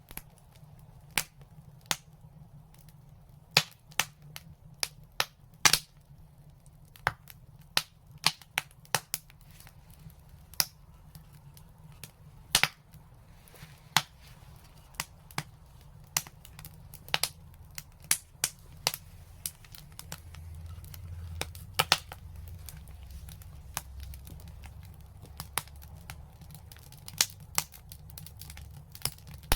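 Wood fire in a fireplace crackling, with frequent sharp, irregular pops over a low rumble that swells for a few seconds about two-thirds of the way through.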